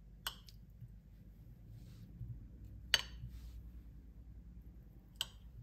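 A kitchen knife cutting peeled potatoes into quarters on a ceramic plate: the blade clicks sharply against the plate three times, about every two and a half seconds, over a faint low hum.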